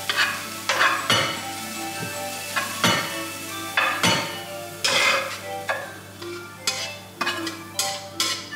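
Chicken and vegetables being stirred in a hot frying pan: repeated scrapes, roughly one a second, over a steady sizzle.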